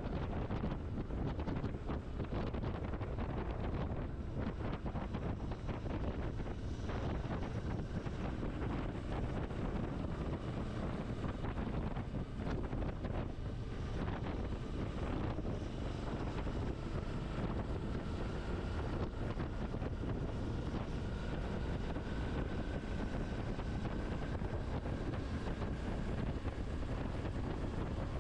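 Wind rushing over the camera microphone of a moving motorcycle, covering the engine running beneath it. In the second half a faint thin whine climbs slowly in pitch.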